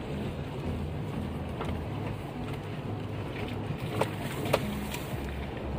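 A car driving slowly on a rough road, heard from inside the cabin: steady low engine and tyre rumble, with a few short knocks and rattles from bumps in the road.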